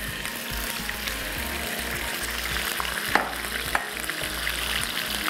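Chicken pieces sizzling and crackling as they fry in hot fat with ginger paste in a frying pan, the first frying stage. There is a sharp knock about three seconds in.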